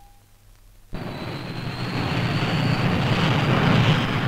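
Twin Rolls-Royce Avon jet engines of a de Havilland DH.110 running on the ground: a steady rushing noise with a thin high turbine whine. It cuts in suddenly about a second in and grows gradually louder.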